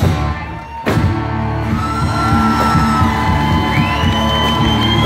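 Live country-rock band playing amplified: electric guitars, acoustic guitar, bass and drums. The music drops briefly, then the whole band comes back in on a sharp drum hit about a second in and plays on.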